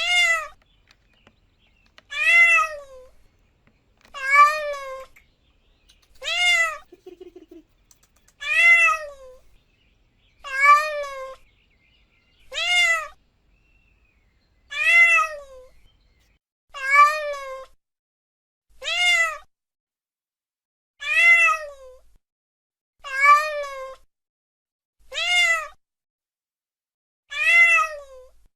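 A domestic cat meowing over and over, one meow about every two seconds, each a short call that rises and falls in pitch.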